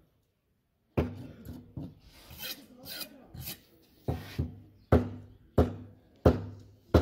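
Heavy curved cleaver chopping fish pieces on a chopping block: sharp, solid chops, the first about a second in, then five more in steady succession about two-thirds of a second apart in the second half. Softer scraping and rasping sounds come between the chops.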